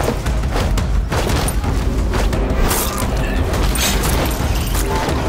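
Film battle soundtrack: dramatic music score mixed with repeated booming thuds and crashes of a mounted melee over a steady low rumble.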